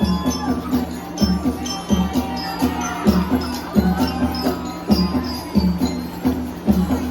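Street-dance festival music with a steady, heavy drumbeat about every half second or so and jingling percussion over it.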